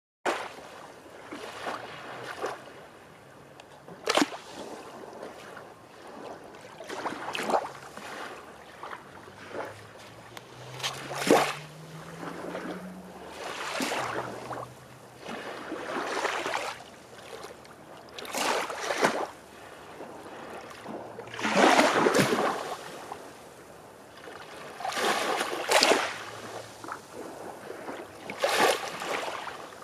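Small waves washing onto a shell-strewn beach, each one swelling and fading every few seconds, some landing with a sharp splash.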